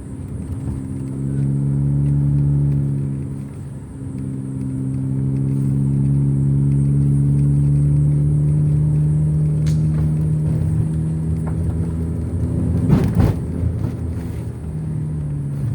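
A vehicle's engine running steadily on the move, easing off briefly about three and a half seconds in and then picking up again. A short loud bump about thirteen seconds in.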